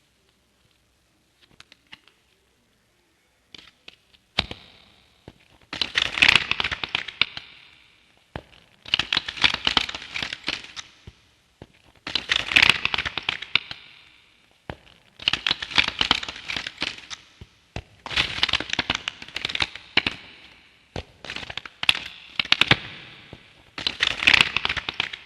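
A cabinet door opened again and again, each opening a one-to-two-second cluster of creaks and clicks, about eight in all after a few quiet seconds.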